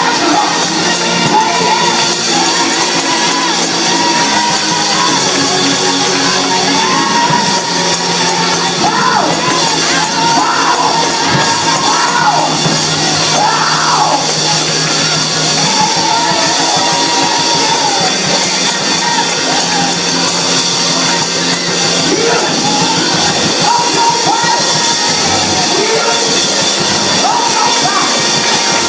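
Loud live music with held chords that change every second or two, and voices singing and shouting over it.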